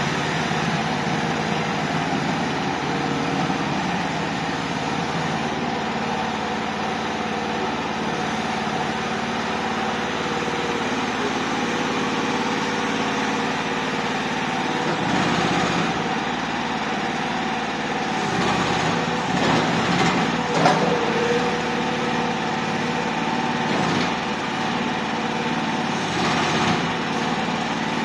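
Mini crawler skid steer loader's small engine running steadily, with several short knocks in the second half, the sharpest about two-thirds of the way in.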